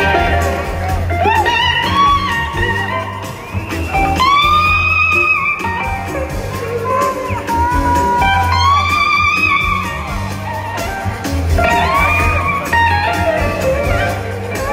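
Live blues-rock band playing an instrumental passage, recorded from the audience. An electric lead guitar plays long, bending held notes over steady bass and drums.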